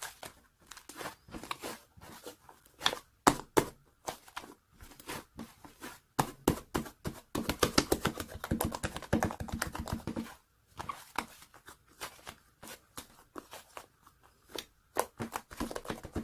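Hands squishing, stretching and folding a fluffy white clay slime, giving a string of sticky clicks, pops and crackles that come thickest and loudest from about six to ten seconds in.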